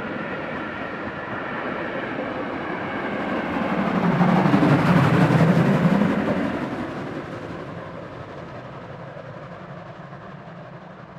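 Steam passenger train climbing a steep incline rolls past: coaches running on the rails, then the pushing steam locomotive at the rear goes by, loudest about four to six seconds in, and the sound fades as it works away up the grade.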